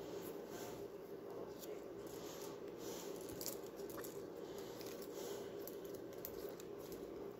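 Faint rustling and scraping of dyed cedar strips being woven and pulled through by hand, over a steady low hum.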